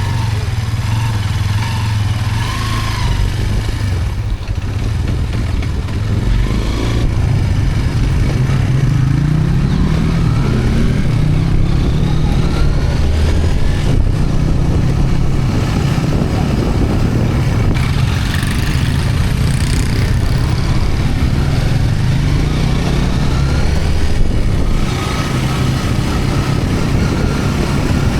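Hero Hunk 160R 4V's single-cylinder engine running under way, rising in pitch a few times as it pulls through the revs.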